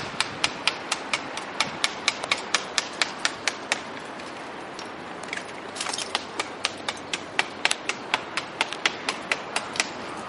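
Hand tool striking a brick chimney, chipping off old concrete: quick sharp strikes about four a second, with a short pause midway before they resume.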